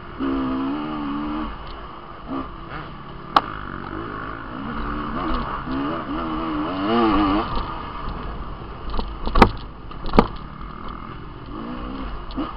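Off-road dirt bike engine revving up and down as the throttle is worked on a rough trail, with pitch swinging up and down repeatedly. Three sharp knocks stand out: one about three seconds in and two close together around nine to ten seconds.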